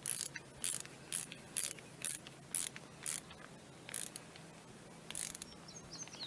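Ratcheting screwdriver clicking as it tightens a hose clamp down onto a brass hose mender, about two clicks a second at first and sparser after about three seconds.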